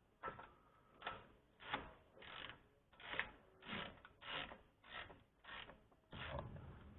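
Half-inch ratchet being worked back and forth in about ten short strokes, each a quick run of clicks, as a rear differential plug is screwed home.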